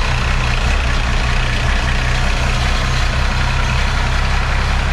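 12-valve Cummins 5.9-litre inline-six diesel running at a steady idle on its first start after being swapped into the truck.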